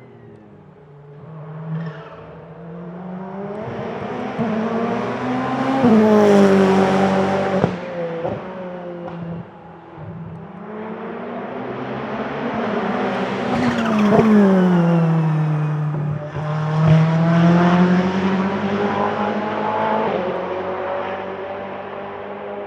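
Ferrari 488 GT Modificata race cars with twin-turbo V8 engines passing at speed on track, loudest about six and fourteen seconds in, the engine pitch dropping sharply as each goes by.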